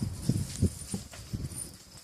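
Footsteps: four or five dull thuds, roughly half a second apart.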